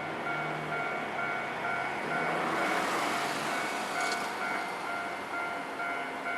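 Electronic level-crossing warning bell ringing in a steady repeating pattern of about two strokes a second. A tram passes over the crossing: its wheel and rail noise swells about two to three seconds in, with one sharp click a second later.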